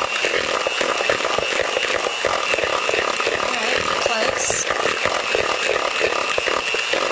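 Electric hand mixer running steadily and a little loud, with a steady high whine, its beaters creaming softened butter with sugar and Splenda in a mixing bowl.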